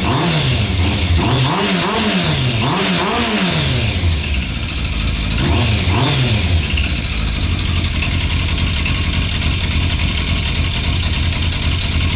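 2001 Yamaha FZS600 Fazer's inline-four engine through an aftermarket Leo Vince exhaust with its dB killer fitted, idling and being blipped on the throttle. About four quick revs come in the first three or four seconds and two more about halfway through, then it settles back to a steady idle.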